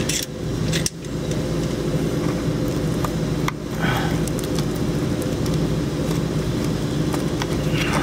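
A steady low mechanical hum throughout, with a few sharp clicks and scrapes of a plastic wiring connector and wires being handled.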